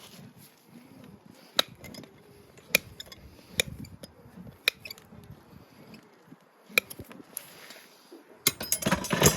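Hoof nippers biting through a Shire horse's dry, brittle hoof wall: single sharp snaps about a second apart. Near the end a hoof rasp starts, rubbing steadily across the hoof.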